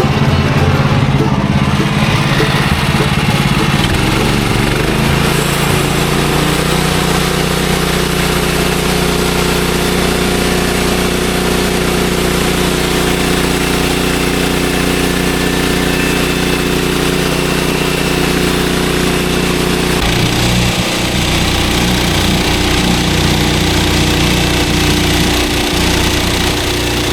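Small gasoline engine of a bandsaw sawmill running steadily, its note shifting about four seconds in and again near twenty seconds as the load or throttle changes.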